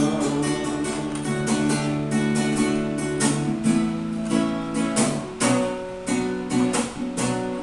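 Instrumental break of a romantic ballad: acoustic guitar strumming chords with a steady rhythm, no singing.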